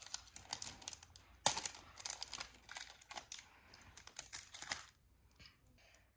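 Crinkling and crackling of a chocolate bar wrapper being opened and handled: a run of irregular crackles, loudest about a second and a half in, which dies down about five seconds in.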